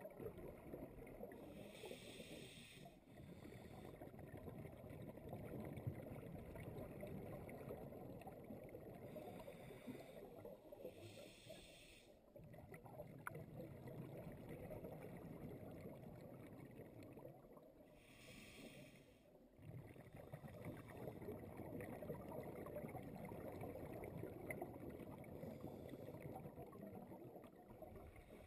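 Faint underwater sound of a scuba diver's regulator breathing: three bubble bursts on the exhale, about eight seconds apart, over a low steady rumble of water against the camera housing.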